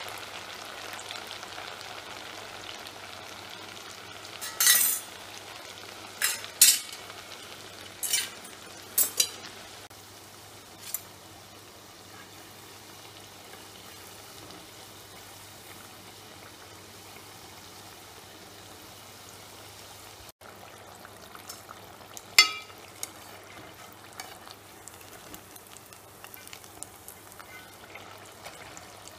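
Murukku deep-frying in a pot of hot oil: a steady sizzle, with a metal spoon clinking against the aluminium pot several times in the first ten seconds and once more about two-thirds of the way through as the murukku are flipped and stirred.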